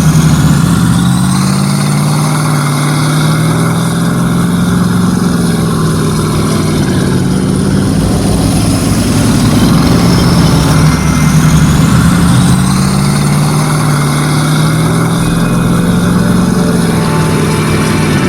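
A vehicle engine running steadily and loud, with a low hum that wavers slightly in pitch.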